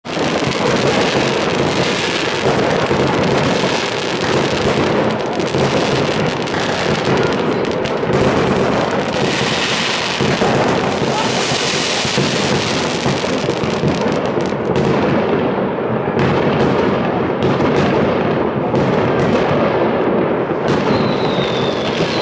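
Many fireworks going off at once: a dense, unbroken din of bangs and crackling. After about fifteen seconds it thins into separate sharp cracks.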